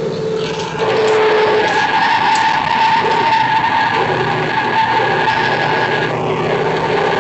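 A 1970 Chevrolet Chevelle's engine under hard throttle, heard from inside the car, with its tyres squealing through a corner. The sound grows louder about a second in and then holds steady.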